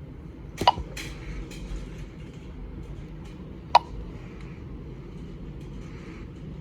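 Two short, sharp key-press chirps from an alarm-system keypad, about three seconds apart, over a low steady background hum.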